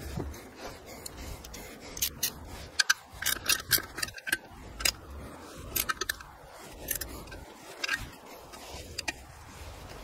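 Small metal clicks and scrapes from a hand tool driving in a bolt that holds a bike's battery tray to the frame. The clicks come irregularly in short clusters, starting about two seconds in.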